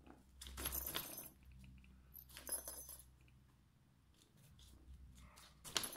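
A fabric pop-up cat tunnel rustling in three short bursts as a cat paws and steps at its opening.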